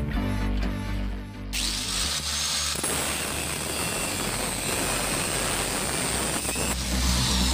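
Hand-held angle grinder with a cut-off disc spinning up with a rising whine about a second and a half in, then grinding through a steel bar held in a bench vise with a steady harsh cutting noise; near the end the disc winds down with a falling whine. Background music is heard at the start and returns at the end.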